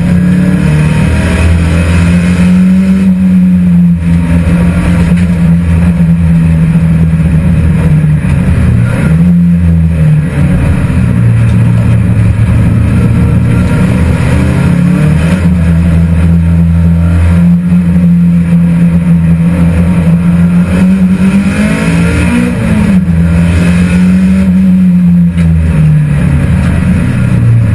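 Race car engine heard from inside its stripped, caged cabin, running hard at track speed. The engine note mostly holds steady, drops briefly about nine seconds in, and rises and falls again a little after twenty seconds.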